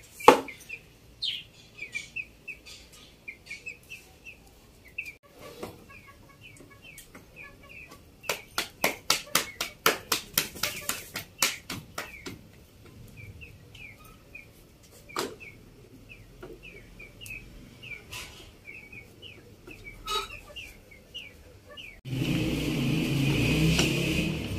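Small cage birds chirping over and over. About eight seconds in, a quick run of hand slaps, about five a second for a few seconds, as roti dough is patted flat between the palms; near the end a wooden rolling pin rumbles steadily across a wooden board as dough is rolled out.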